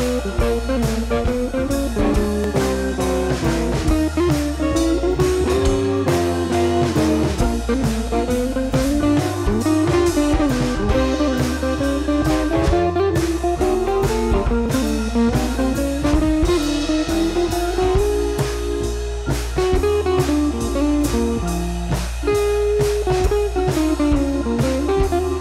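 Background music: a guitar-led track over drums with a steady beat.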